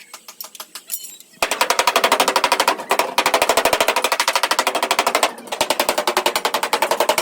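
Rapid machine-like hammering on the truck's sheet-metal cab, about a dozen sharp strikes a second. It comes in three bursts of roughly two seconds each, beginning about a second and a half in, with brief pauses between them.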